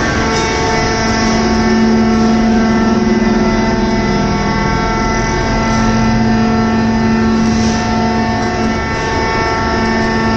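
Hydraulic scrap metal baler running: a loud, steady machine hum with a strong low tone and higher overtones, easing slightly for a moment near the end.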